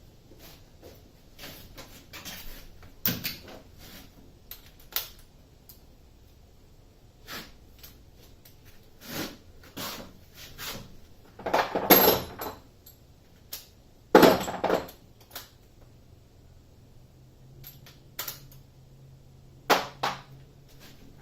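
Irregular metallic clicks and clanks of a wrench working the 14 mm bolts that hold a school bus's rear air-conditioner unit, with two louder bursts of clattering about twelve and fourteen seconds in. A faint steady hum starts about fourteen seconds in.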